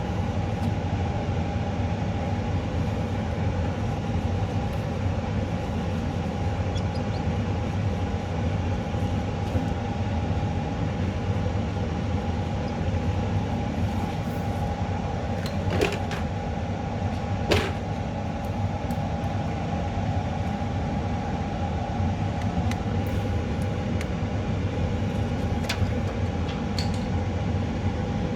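Steady machine hum with a constant tone, with two sharp clicks a little past the middle.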